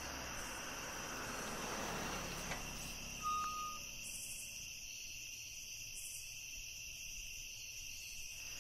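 Crickets chirping in a steady night chorus, with a car's low running noise that stops about two and a half seconds in. A short beep sounds just after three seconds.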